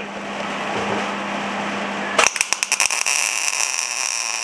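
MIG welder arc striking about halfway through: a few sharp pops, then a steady hiss as bolts are welded onto steel. Before the arc lights there is only a steady low hum.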